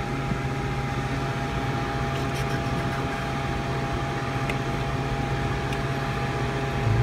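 Steady machine hum of a commercial refrigeration unit running, its compressor and condenser fan giving a constant low drone with a fainter steady higher tone, and a few faint ticks.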